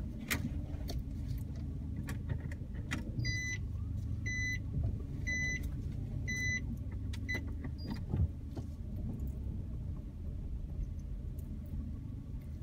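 A car running at low speed while parking, heard inside the cabin as a steady low rumble. About three seconds in come four evenly spaced high beeps about a second apart, with scattered light clicks throughout.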